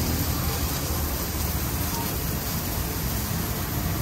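Steady sizzling hiss of food frying at a hamburger stall, over a low traffic rumble.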